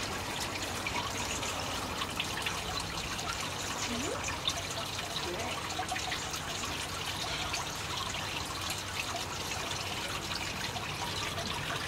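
Steady trickling of running water, with faint scattered ticks.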